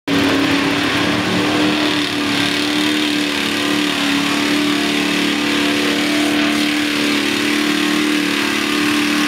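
Big-block Chevy V8 in a lifted mud truck on 54-inch Super Swamper Bogger tires, held at high, steady revs as the tires churn through deep mud.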